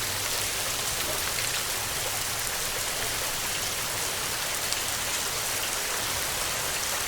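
Steady rain falling, an even hiss with faint single drops ticking through it.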